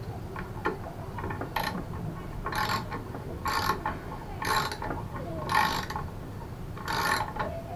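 Socket ratchet wrench clicking in about six short rasps, roughly one a second, as it tightens the nut on the mobility scooter's wheel axle.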